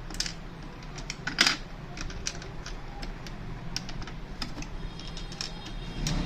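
Irregular small clicks and taps of printer parts being handled and fitted by hand during a gear repair, with one louder knock about a second and a half in.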